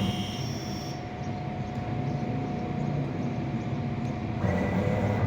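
CNC router working a PVC board: a steady machine whine over a low rumble, with a second, higher whine joining about four seconds in.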